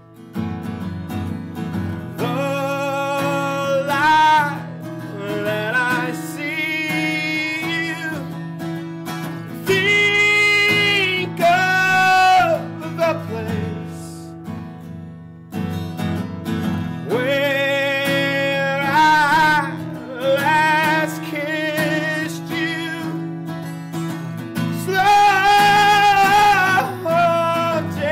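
A man singing with a strummed acoustic guitar, the voice in long held phrases and at its strongest near the end.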